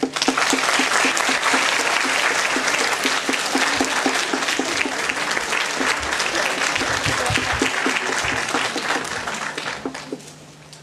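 Audience applauding, a dense clapping that starts sharply and dies away near the end.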